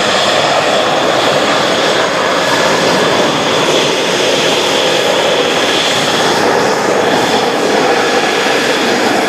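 A Kawasaki C-1 military transport's twin Pratt & Whitney JT8D turbofan engines at takeoff power as it climbs away: a loud, steady jet roar with a thin high whine over it.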